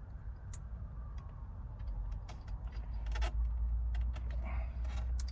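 Scattered light clicks and rattles of hands working a horn wiring connector at a car's steering column, over a steady low rumble that grows louder about three seconds in.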